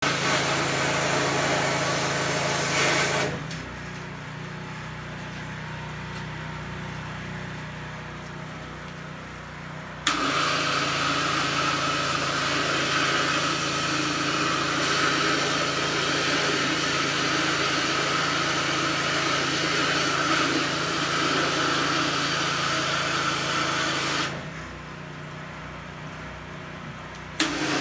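Hot-water pressure washer flushing an engine block's water jackets at 3,500 psi through a needle-nose wand. The pump hums steadily, and the spray hisses in long blasts: for about the first three seconds, then again from about ten seconds in, starting with a click and running until shortly before the end, then briefly once more at the very end. The blasts wash out decades of scale and debris from inside the block.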